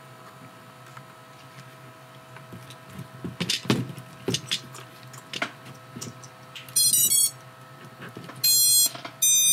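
Brushless motors of a 5-inch quad sounding the BLHeli_S ESC power-up beeps: a quick run of short stepped notes, then two longer beeps near the end, showing the ESCs have powered up. Before that, a few clicks as the power lead is connected.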